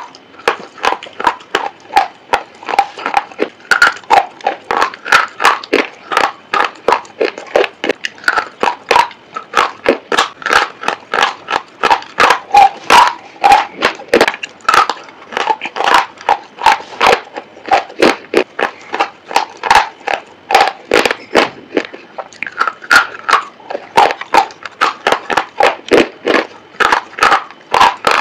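Close-miked crunching as hard white chalk-like sticks are bitten and chewed: a fast, steady run of sharp, brittle crunches, about three a second.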